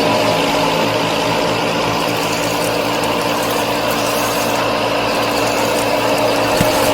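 Small motor of a home-built miniature farm machine running steadily at a constant pitch, with a light mechanical rattle.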